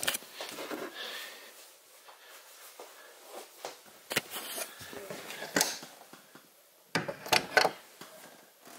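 Soft rustling and handling noise, then a quick cluster of sharp clicks and knocks about seven seconds in as the camper's entry door latch is worked and the door is pushed open.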